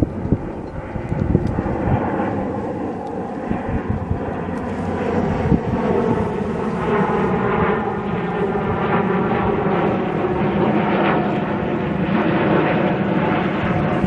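A steady engine drone that holds one pitch, coming in a few seconds in and staying. A few low thumps hit the microphone in the first couple of seconds.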